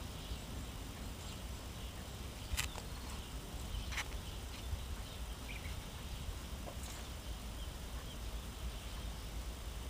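Outdoor background noise: a steady low rumble with faint high chirps. Two sharp clicks stand out, about two and a half and four seconds in.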